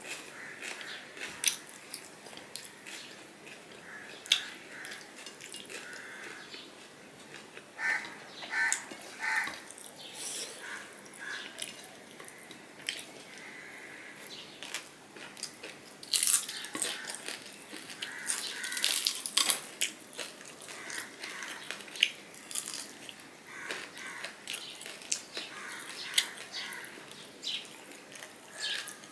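Close-miked eating sounds of a man eating rice and fried hilsa fish by hand: wet chewing and lip smacks with many short sharp clicks, busiest about halfway through.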